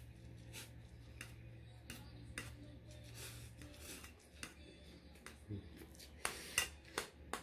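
A person eating pancit canton instant noodles: a fork clicks and scrapes against a metal plate at irregular moments, mixed with slurping and chewing. The loudest clicks come near the end.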